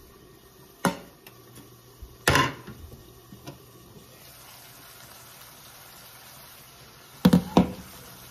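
Kitchenware knocking a few times, then a faint sizzle of tilapia fillets frying in butter as the glass lid comes off the frying pan about four seconds in. Near the end, two sharp clacks as the glass lid is set down on the glass cooktop.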